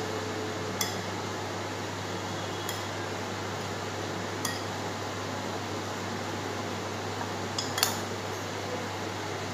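A spoon mixing a puffed-rice mixture in a glass bowl, clinking sharply against the glass about four times, loudest near the end, over a steady background hum.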